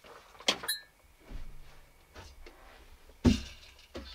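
Handling and movement noises in a small recording booth: a short sharp rustle about half a second in, then a single loud thump about three seconds in.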